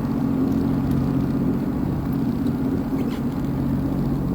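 Sea-Doo Fish Pro personal watercraft engine running at a steady, even speed, a constant low hum.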